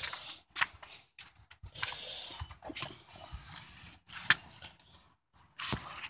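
Irregular rustling and scraping from a handheld camera being moved, broken by several sharp clicks and short gaps.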